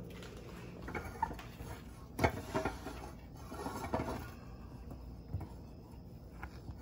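Silicone spatula stirring a thick buttermilk glaze in a saucepan, with a few short scrapes and light knocks against the pan.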